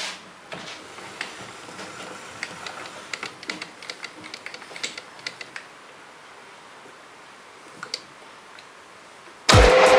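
Light metallic clicks and taps as the metal lathe's tool post and carriage are set by hand. About half a second before the end the lathe motor switches on and the chuck runs with a loud, steady hum.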